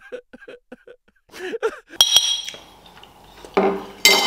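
Close chewing noises, then a metal spoon clinks sharply against a ceramic plate about two seconds in, ringing briefly, and clatters on it again near the end.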